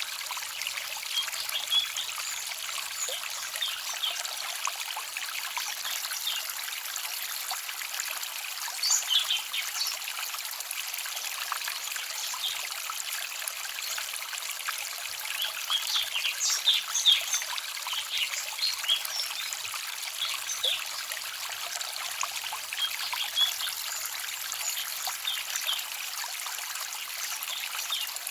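Small forest stream trickling and babbling: a steady hiss of running water with many quick little splashes and plinks, a little busier about nine seconds in and again around sixteen to eighteen seconds.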